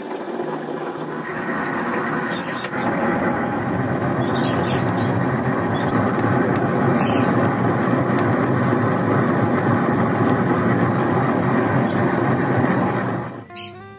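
Tabletop wet grinder running, its stone rollers churning thick batter in the turning drum: a steady grinding rumble that builds over the first couple of seconds, with a few faint high clicks, and cuts off sharply about a second before the end.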